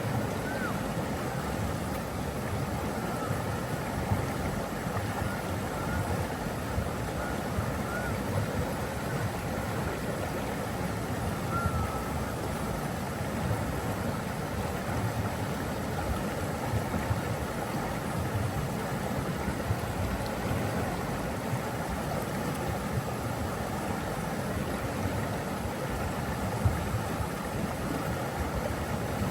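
Steady rush of flowing water, with a few faint short chirps over it.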